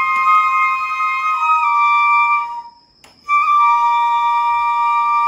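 Two shinobue, Japanese transverse bamboo flutes, playing together in long held notes a few tones apart, breaking off briefly just under halfway through and then holding two notes again.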